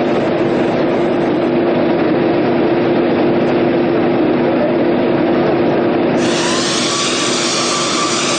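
Steady drone of a parked jet airliner's running engines or auxiliary power unit: a constant loud hum with a low steady tone under a wide even roar.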